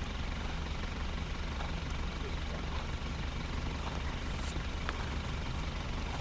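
Steady low hum of an idling engine, with an even background rush.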